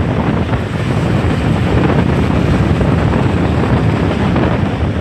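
Strong hurricane wind buffeting the microphone in a steady, loud rumble, with rough sea surf mixed in behind it.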